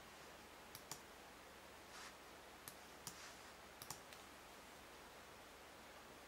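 Faint computer mouse clicks, about seven in the first four seconds, some in quick pairs, with a few soft brushing sounds among them over a low hiss.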